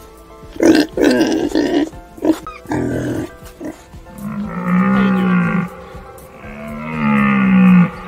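Pig grunting in short rough bursts for a few seconds, then two long, low animal calls, each rising and falling slightly in pitch.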